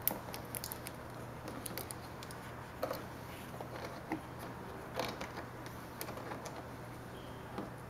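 Faint, scattered small clicks and rustles of fingers handling a marker light's wire and plastic plug as they are pushed into a hole in the truck's fender.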